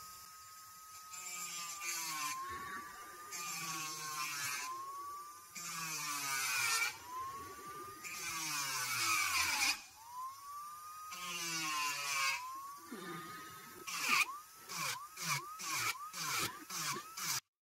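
Electric nail drill whining, its pitch sagging and recovering each time the bit is pressed against a hard poly gel nail, with a gritty grinding at each pass. Near the end come quicker, shorter strokes, and the sound cuts off abruptly.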